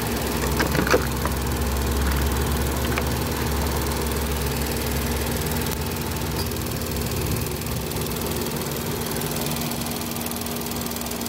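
Ford Focus engine idling steadily, with a few light plastic clicks about a second in and again near three seconds as fuses are pulled with a plastic fuse puller.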